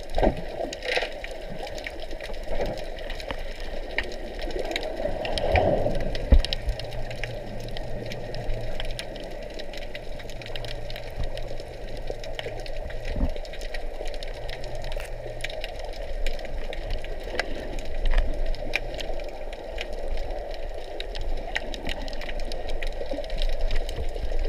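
Underwater ambience: a steady muffled hum with many scattered short clicks and crackles, swelling louder for a moment about five to six seconds in.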